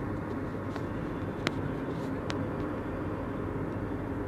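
Steady road and engine noise heard inside a moving car's cabin, with two short sharp clicks about one and a half and two and a half seconds in.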